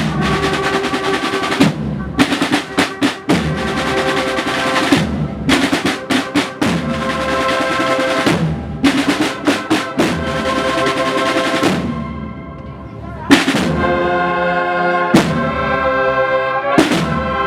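The percussion section of a Spanish cornet-and-drum band playing a march: long snare drum rolls broken by groups of sharp accented strokes and bass drum hits. Sustained pitched tones ring over the drumming, and a single loud hit about thirteen seconds in comes after a brief quieter moment.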